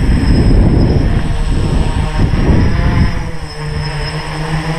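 A 3D-printed tricopter's motors and propellers buzzing as it flies close by, with wind buffeting the microphone as a gusty rumble. About three seconds in the rumble eases and the propellers' steady hum comes through clearly.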